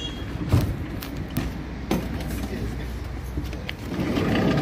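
A few sharp knocks against a minivan's door and body, then shuffling and rustling near the end as someone climbs into the front seat, over a steady low rumble.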